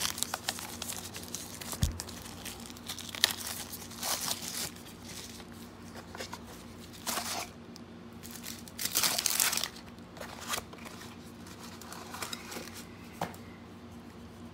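Plastic packaging crinkling and rustling as it is handled, in several irregular bursts with pauses between them.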